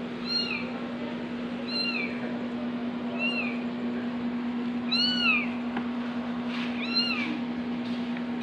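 Newborn kittens crying: about five high, arching mews, roughly one every one and a half to two seconds, over a steady low hum.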